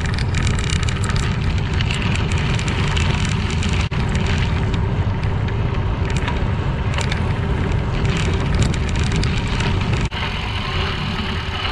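Bicycle tyres crunching steadily over a crushed-limestone trail, with wind rumbling on the microphone. The sound drops out for an instant twice, at about 4 and 10 seconds in.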